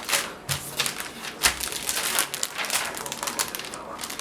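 Packaging crinkling and rustling in quick, irregular bursts as it is handled.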